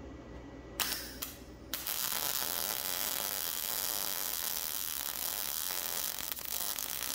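MIG welding arc from a YesWelder Firstess MP200 on 14-gauge mild steel. It strikes twice briefly about a second in, then from about two seconds in burns steadily with a continuous sizzle. The joint is being welded dirty, without cleaning, and contamination flakes off in the puddle.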